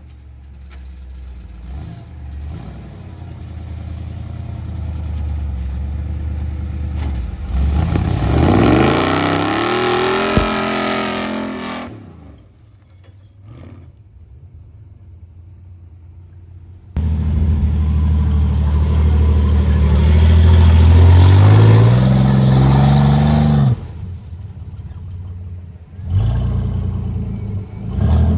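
Off-road vehicle's engine revving hard under load through a deep creek crossing. The pitch climbs in two long pulls of several seconds each, with quieter low running between. The sound cuts off and starts again abruptly several times.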